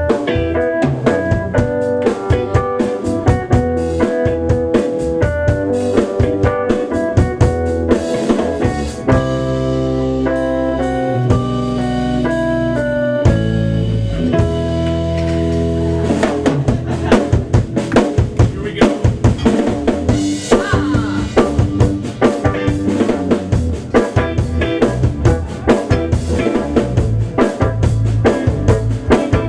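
Live rock band playing an instrumental passage on electric guitar, electric bass and drum kit. Around nine seconds in the drums thin out under held chords, and the full kit comes back in at about sixteen seconds.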